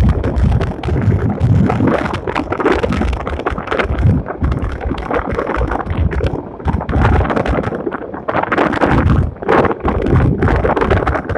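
Strong wind buffeting the microphone in gusts, with a rumbling low end and irregular crackles and scrapes.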